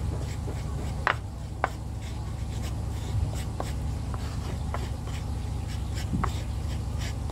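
A cobek mortar and pestle grinding dry crumbled biscuit and instant-noodle bait: a steady scratchy rubbing as the pestle is worked around the bowl, with a few sharper clicks of the pestle knocking the rim.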